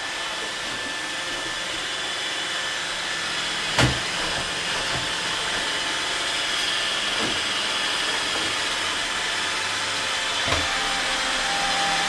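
iRobot Roomba 880 robot vacuum running: a steady whir of its suction motor and brushes with a faint high whine. There is a single knock about four seconds in and a lighter one near the end.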